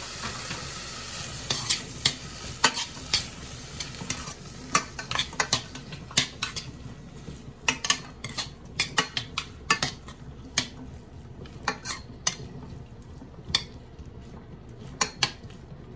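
Metal spoon stirring diced potatoes and onions in a stainless steel saucepan, with many sharp clinks and scrapes against the pan, over a steady sizzle of frying.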